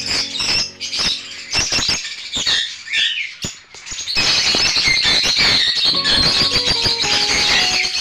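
A colony of lovebirds chattering and squawking with dense high chirps. Background music comes back in over the birds from about halfway, its notes stepping down near the end.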